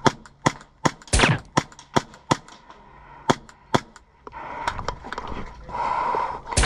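Airsoft pistol firing a string of sharp cracks, about two to three shots a second for the first four seconds, then a louder crack near the end.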